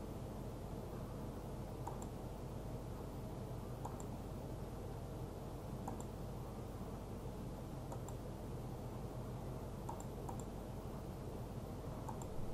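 Computer mouse clicking, one click about every two seconds with two in quick succession near the end, over a steady low hum.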